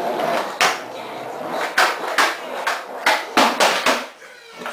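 A skateboard and sneakered footsteps on a concrete floor: a run of irregular knocks and clatters, ringing briefly in a small room.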